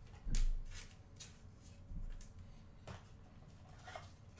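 Trading cards being handled and flicked through by hand: a string of short, crisp clicks and rustles, the loudest about a third of a second in, with smaller ones roughly every half second after.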